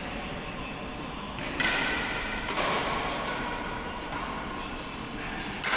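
Badminton rackets striking a shuttlecock during a rally, sharp hits that echo in a large hall. The loudest come about a second and a half in, a second later, and again near the end.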